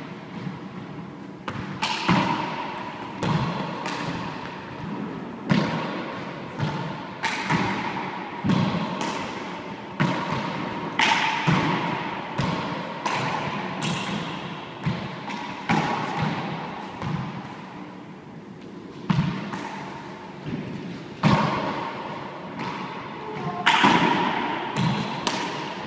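Four-wall handball rally: the small rubber ball struck by gloved hands and smacking off the walls and floor in an irregular series of sharp hits, each one echoing around the enclosed court.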